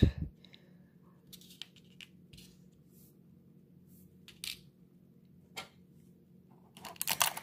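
Small die-cast model car parts, rubber tires and little axles, being picked up and set down on a tabletop. There is a knock at the start, then scattered light clicks and taps, and a quick run of clicks near the end.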